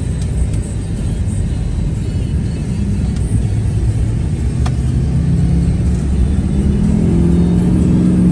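Pickup truck on the highway heard from inside the cab: steady road and wind noise with the engine under it, towing a boat. About halfway through the engine note rises a little, then holds steady, as the truck picks up speed.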